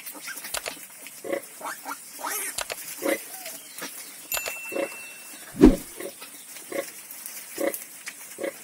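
Sow and suckling piglets grunting: short grunts come about twice a second, with one loud, deep grunt a little past halfway.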